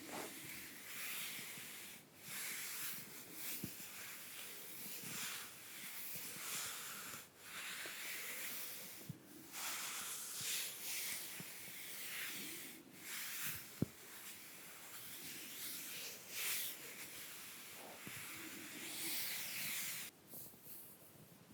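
Makeup brushes swept lightly over bare skin: a run of soft, hissy brushing strokes about once a second with short pauses, broken by one sharp click a little past the middle, and stopping shortly before the end.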